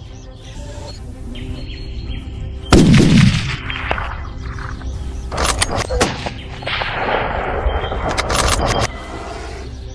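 A loud gunshot about three seconds in, with a booming tail, followed by several sharper shots later on, over background music.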